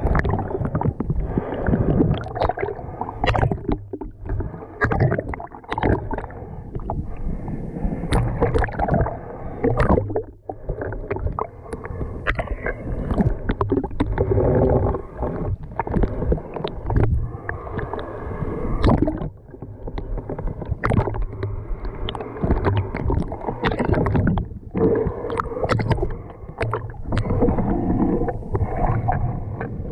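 Muffled underwater sound from a submerged GoPro while snorkeling: water sloshing and gurgling around the camera housing, dull and low, with frequent small clicks and knocks and an uneven, surging loudness.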